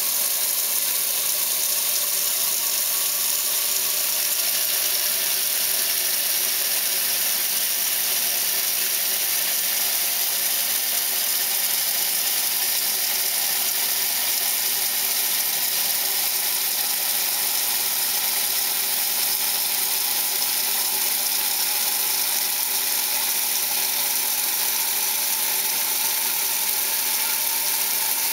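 A Whirlpool-built 1968 Kenmore 900 series top-load washer agitating a load: the machine's drive runs steadily with water churning in the tub.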